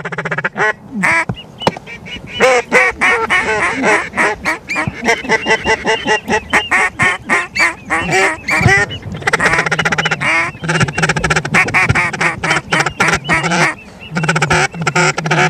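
Geese honking and ducks quacking in a dense, fast stream of overlapping calls, with many short sharp clucking notes.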